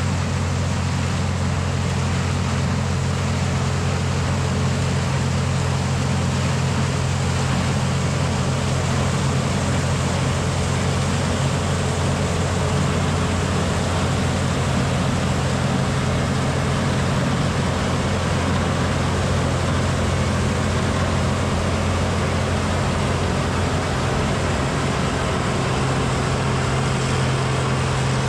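Tractor engine running steadily at a constant speed, a low even hum.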